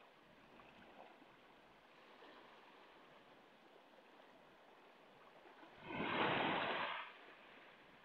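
Small sea waves washing onto a stony beach: a faint, steady wash, then one much louder surge of water about six seconds in that lasts about a second.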